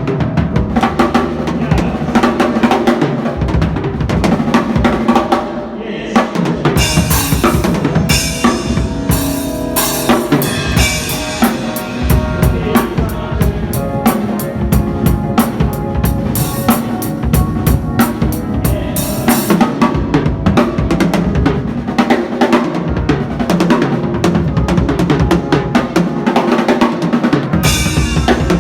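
Drum kit played in a busy, fast solo: dense snare and bass drum strokes with cymbal crashes.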